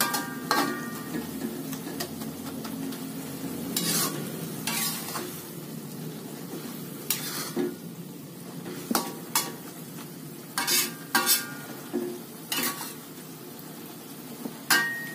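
Water spinach stir-frying in a metal wok with a steady sizzle, while a metal spatula scrapes the pan and strikes its rim in irregular, ringing clanks.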